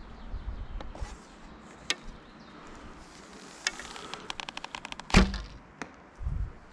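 A bow being shot: a quick run of small clicks, then the loud snap of the bowstring released, followed about half a second later by a sharper knock of the arrow striking the target.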